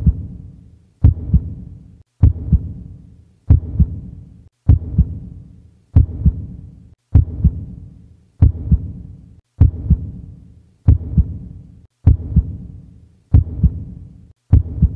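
Heartbeat sound effect: a low double thump, lub-dub, repeating about every 1.2 seconds.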